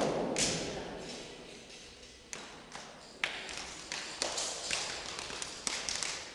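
The echo of a heavy thump fades over the first second in a large, reverberant hall. From about two seconds in comes an irregular series of sharp slaps and taps from a tongbei practitioner's strikes and footwork on the mat.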